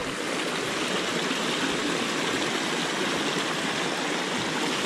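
Small creek rushing steadily over a short cascade of white water.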